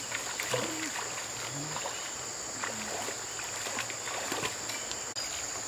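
Bare feet wading through shallow river water with small scattered splashes, over a steady high-pitched insect drone.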